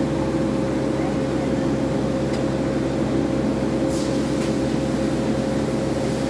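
Steady mechanical hum holding a constant pitch, with a faint tick about two seconds in and a short brushing hiss about four seconds in.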